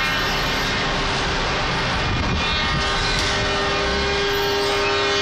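A convoy of lorries drives past with engines running, and a long steady air-horn note comes in about three and a half seconds in.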